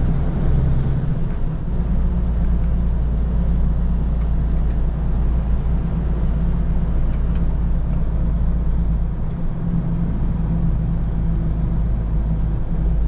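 Steady drone of a MAN TGX truck's diesel engine under way, with road noise, heard inside the cab. A few faint ticks sound over it.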